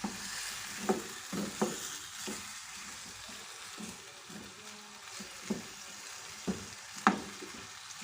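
Chicken drumettes and garlic sizzling in a frying pan just after white wine has gone in, with a utensil knocking and scraping against the pan now and then as they are stirred.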